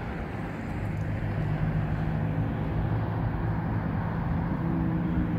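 A motor vehicle on the road running past. Its engine note grows louder and starts to rise in pitch near the end, as it speeds up.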